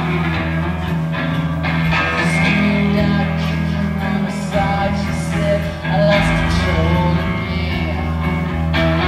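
Background rock song with guitar and a singing voice.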